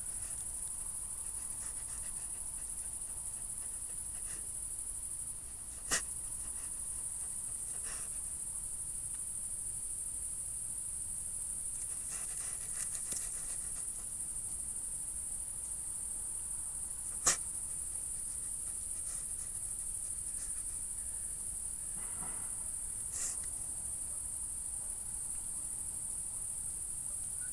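Steady high-pitched chirring of crickets throughout. A few short, sharp sounds cut through it: one about six seconds in, a louder one about seventeen seconds in, and a fainter one near the end. These are questioned as a crested porcupine sneezing.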